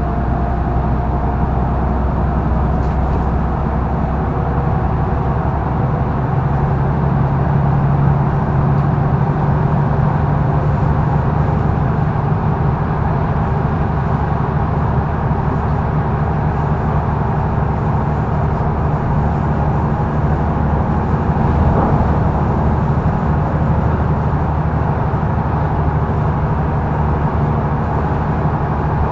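Mercedes-Benz O530 Citaro facelift GÜ bus under way, heard from inside the passenger cabin: a steady diesel engine drone with road and tyre noise. It swells a little several seconds in.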